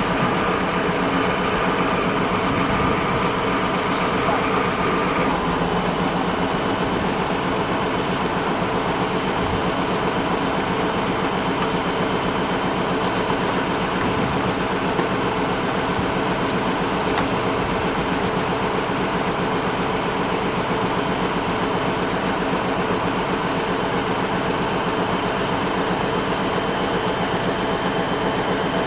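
Heavy lorry engine idling steadily, with a higher steady hum on top that stops about five seconds in.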